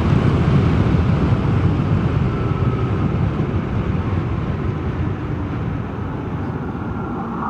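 Vespa GTS 300 scooter's single-cylinder engine running under way with rumbling wind noise on the microphone, getting slightly quieter over the first several seconds as the scooter slows.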